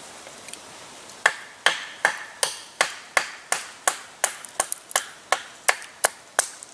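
Wooden baton knocking on the spine of a Habilis Bushtool knife, driving the blade down through a small upright stick to split it. About sixteen sharp knocks start just over a second in and come at a steady pace of about two and a half a second.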